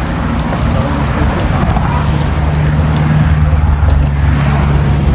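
Steady low rumble of wind and road noise from a moving bicycle among a group of cyclists, with a low hum that grows stronger about two seconds in and a few faint clicks.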